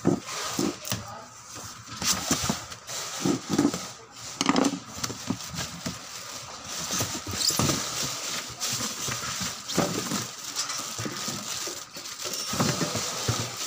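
Cardboard shipping box being opened by hand: tape peeled off and flaps scraped and pulled open, giving irregular scratchy rustling and light knocks.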